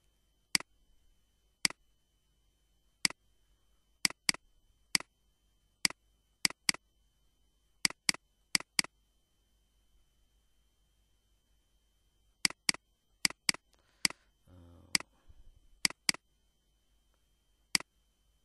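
Computer mouse clicking, about twenty sharp clicks at an irregular pace, several in quick pairs, with a pause of a few seconds in the middle.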